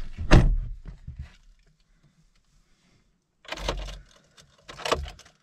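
Car door shutting with a heavy thump just after the start, then near quiet with two short bursts of handling noise, rustling and clatter, later on. The engine is not yet running.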